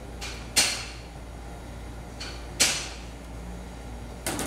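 Three sharp clacks about two seconds apart, with a few faint ticks between them, from plastic parts knocking together as a MAP sensor is worked onto the end of a PCV hose. A low steady hum runs underneath.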